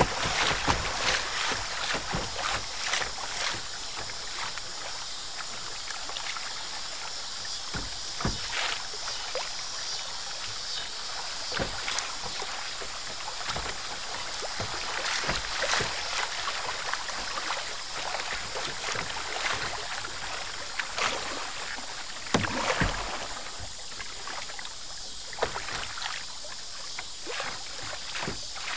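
Kayak moving down a riffled river: water rushing steadily along the plastic hull, with frequent short splashes and knocks, a few of them louder.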